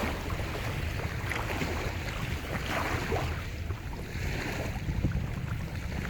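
Surf on a large lake: waves breaking and washing ashore in several surges, with a steady low rumble of wind on the microphone.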